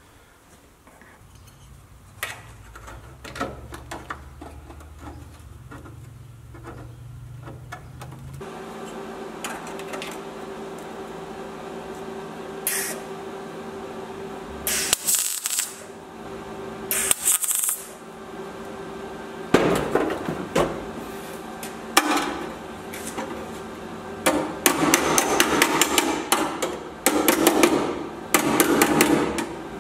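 Two short bursts of welding arc crackle about halfway through. Then a hammer strikes the sheet-steel wheel arch corner repair panel in quick runs of sharp metallic blows that grow denser near the end.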